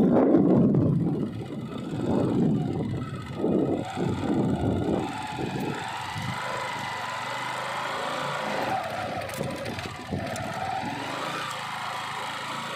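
Bajaj Discover motorcycle's single-cylinder engine running during an off-road ride. Loud, gusty low noise fills the first few seconds, then the sound settles into a steadier engine note.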